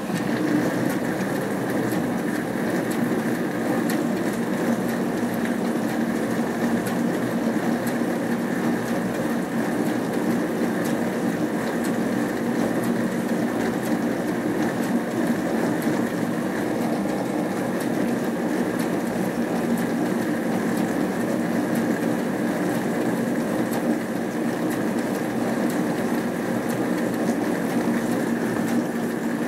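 Hotpoint Aquarius+ FDW70 dishwasher's wash pump running steadily during a wash cycle: a constant motor hum with water spraying and splashing inside the tub from the lower spray arm.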